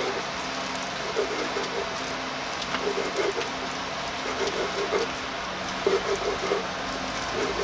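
A kitchen knife slicing through sundae, Korean blood sausage, and knocking on a wooden cutting board in a slow, irregular series of cuts, over a steady hiss.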